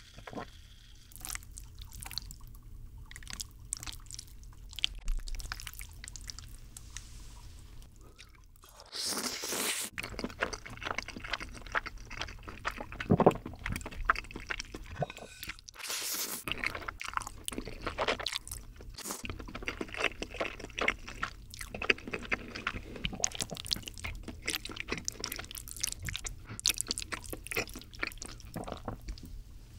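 Close-miked eating sounds: creamy bacon pasta being slurped and chewed wetly, with clicks of chopsticks and a spoon. A few louder slurps stand out.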